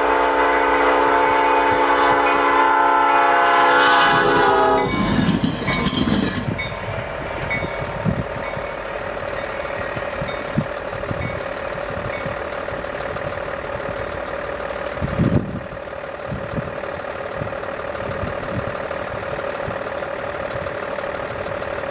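Diesel locomotive's multi-chime air horn sounding one long blast as the train approaches, cutting off about five seconds in. After it comes a lower rumbling with scattered knocks and a faint steady hum, with one louder thump past the middle.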